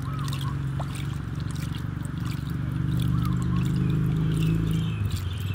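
Water splashing and trickling in a plastic basin as hands scoop and stir it while bathing a baby monkey. Under it runs a steady low mechanical hum, like a motor running, which grows a little louder past the middle and drops away near the end.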